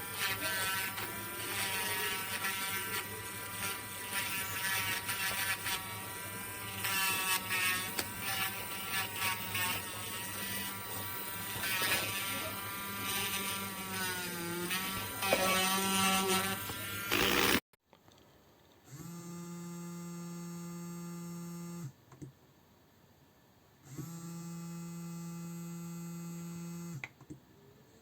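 Small electric nail-drill motor running with a pitch that wavers up and down, then stopping abruptly. After that it runs in steady bursts of about three seconds, switching on and off twice.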